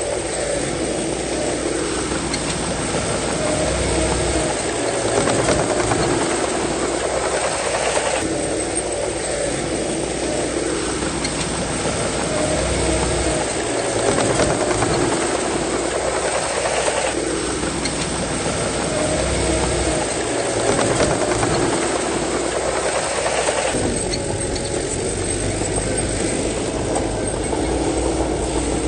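Crawler bulldozer running under load with a steady engine note and clattering tracks, the sound shifting and swelling in cycles about every eight seconds.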